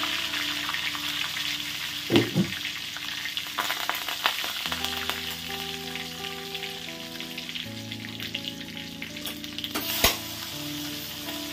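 Cumin, asafoetida and green chillies sizzling in hot oil in an iron kadhai, with sharp pops about two seconds in. About ten seconds in, chopped onion is dropped into the oil and the sizzling flares up loudly.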